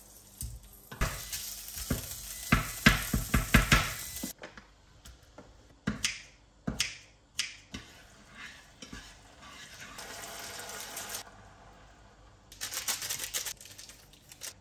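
Beef frying in a small saucepan, sizzling, with metal tongs clicking against the pan, densest in the first few seconds. Scattered clinks and scraping of utensils stirring in the pan follow.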